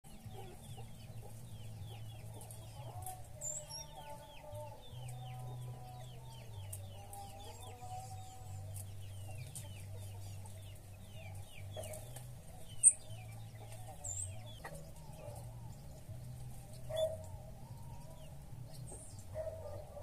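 Backyard birdsong with chickens clucking: a run of rapid, quick falling notes from a small bird through the first twelve seconds, and a few thin, high chirps, the loudest a sharp one about 13 s in.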